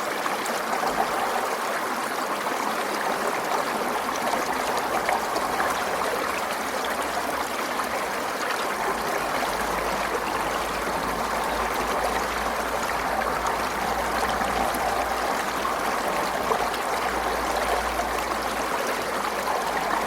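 Forest stream running steadily over rocks, a continuous even rush of water with small splashes and trickles.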